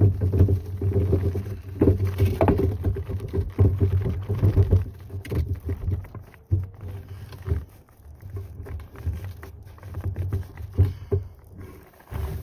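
Clear plastic bag crinkling and rustling as oxalic acid powder is poured and shaken out of it into plastic jars, with handling knocks over a low rumble. It is busiest in the first half and more sparse later.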